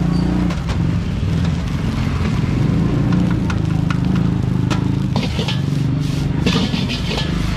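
A motor vehicle's engine running steadily close by, a low hum, with a few scattered metal clinks from cooking.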